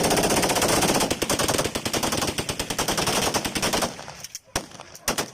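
Long burst of automatic gunfire, the shots following so fast they run together for about four seconds, then a few scattered single shots near the end.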